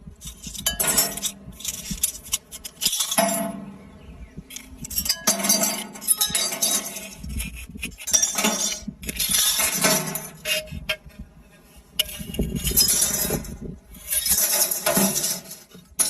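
Close-miked clinking and tapping on glass, coming in short clusters of sharp clicks about every one to two seconds.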